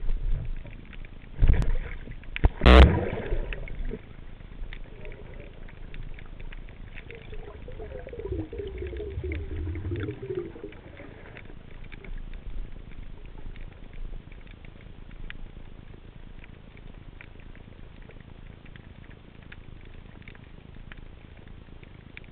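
Underwater ambience with a steady faint crackle and hiss. Two sharp knocks come about a second apart in the first three seconds, and a low rumble rises briefly around a third of the way through.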